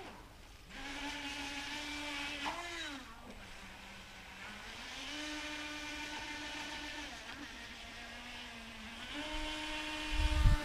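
Pro Boat River Jet 23 RC jet boat's battery-powered electric motor whining as the boat runs across the water, its pitch rising and falling several times. Low thumps near the end.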